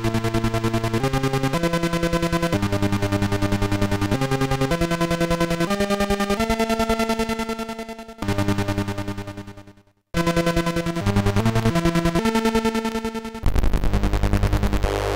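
Homemade breadboard analog synthesizer playing a stepping melodic line of buzzy, harmonic-rich notes, each note pulsing rapidly. The notes fade out and the sound stops briefly about ten seconds in, then resumes. Near the end it changes to a louder, deep bass tone.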